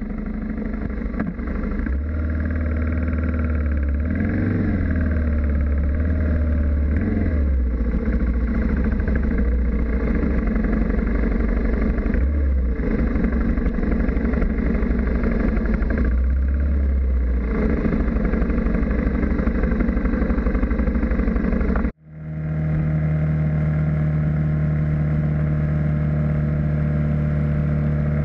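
Single-cylinder BMW G650GS motorcycle engine running under way, heard from an onboard camera with road and wind rush. A few seconds in, its pitch rises and falls with the revs. About 22 seconds in, the sound breaks off for an instant and comes back as a steadier, even drone of cruising.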